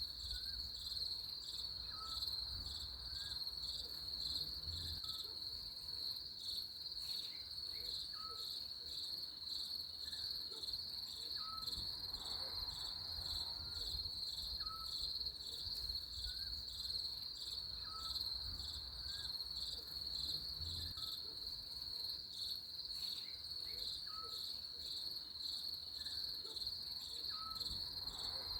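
Steady, high-pitched insect trilling in a slightly pulsing chorus, with faint short rising chirps repeating about every two seconds and a low rumble underneath.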